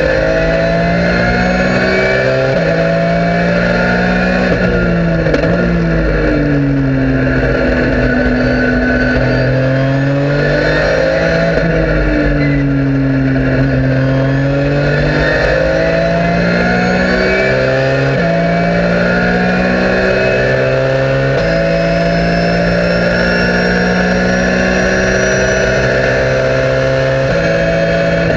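Porsche 997 GT3 Cup race car's flat-six engine heard from inside the cockpit at racing pace. The revs dip and climb through a run of corners, then it pulls at full throttle down the straight with three quick upshifts in the second half.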